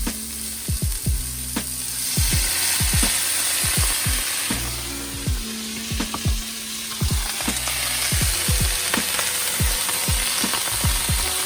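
Mixed vegetables sizzling and steaming in a hot cast iron skillet, just after a splash of water was added, while being stir-fried. The hiss swells about two seconds in, eases briefly near the middle, then holds.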